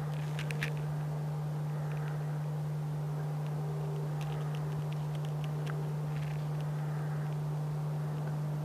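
A steady low hum throughout, with a few faint sharp clicks and snaps about half a second in and a scatter more around the middle.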